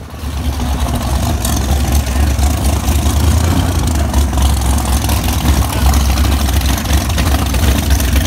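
1969 Camaro drag-race car's engine idling at the starting line: a loud, steady, deep rumble.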